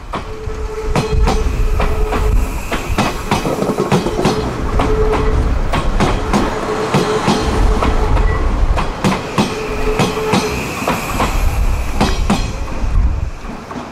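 Odakyu electric train running over rail joints: a rapid, uneven run of wheel clacks from its bogies, with a hum that comes and goes. The sound drops away near the end as the train passes.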